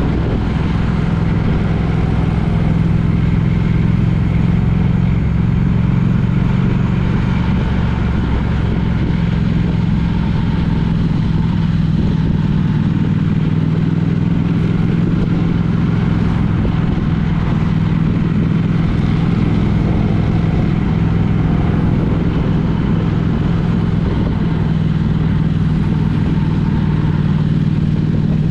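A road vehicle on the move: a steady engine drone mixed with road noise, its pitch shifting slightly now and then.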